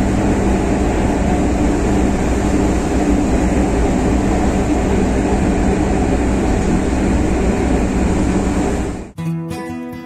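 Bulk carrier underway: the steady noise of churning propeller wake and the ship's running machinery, with a low hum through it. About nine seconds in it cuts to acoustic guitar music.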